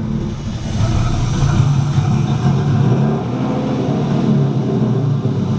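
Nissan 240SX's engine idling steadily, just after being started.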